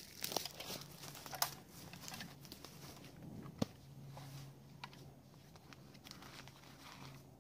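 Faint rustling and crinkling with scattered crackles and a few sharp clicks, over a faint steady low hum.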